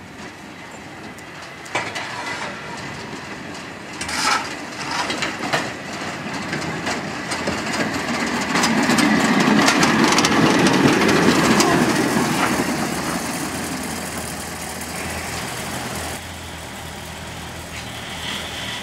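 Small diesel rail vehicle's engine running as it comes up and passes close by, getting louder towards the middle and then fading as it moves away, with its wheels clicking over the rail joints and points.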